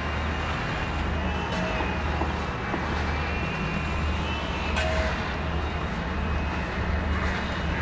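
Steady hum of city traffic and urban background noise heard over the rooftops, with a few short sharp sounds, one near the middle.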